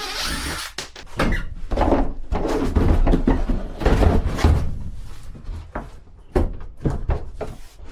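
Irregular knocks, thuds and clatter of objects being handled and bumped against hard surfaces, with a low rumble underneath.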